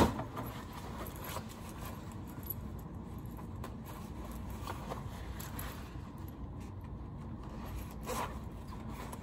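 Zipper of a quilted winter coat being fumbled at its bottom end while trying to engage it, with small clicks and scratchy fabric-and-metal scrapes. A sharp knock comes right at the start.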